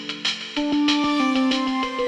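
Instrumental background music with a steady beat and held pitched notes; a louder, fuller passage comes in about half a second in.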